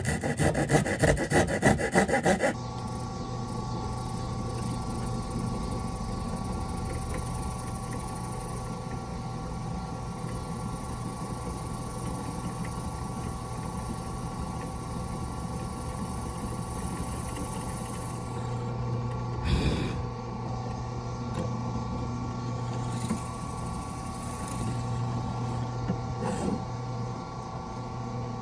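Electric power tool cutting a piece of wood: a loud rapid rasping for the first couple of seconds, then the tool's motor running steadily with a lighter cutting sound.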